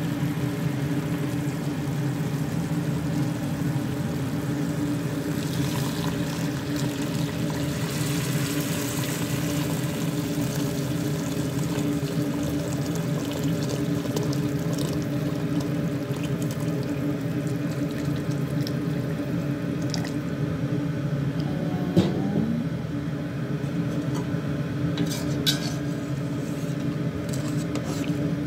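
Hot water poured from a container into a pot of browned chicken pieces, splashing as the pot fills, over a steady low hum. A few sharp clinks come near the end.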